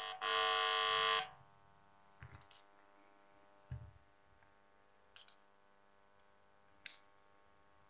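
Music through a homemade 2SC5200/2SA1943 transistor amplifier and speaker, cut off sharply about a second in. Then a faint steady hum with a few short clicks as the MP3 decoder module is handled and its buttons pressed.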